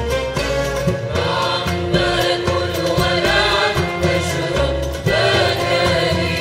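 Arab orchestra with a mixed choir singing in unison: a Levantine folk song with qanun, oud and violins accompanying the chorus over a rhythmic low beat.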